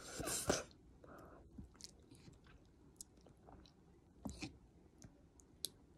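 A person eating soup noodles: a short loud slurp as a forkful of noodles is drawn into the mouth, then chewing with scattered soft mouth clicks and smacks, one stronger smack about four seconds in.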